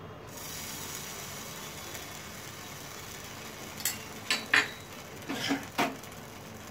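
Rava pizza base cooking on a non-stick tawa over a low gas flame, giving a faint steady sizzle. From about four seconds in come several sharp clinks of kitchen utensils being handled.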